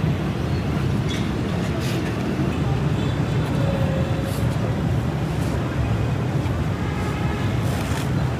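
Busy street din: a steady low rumble of road traffic with background crowd chatter and a few short clicks.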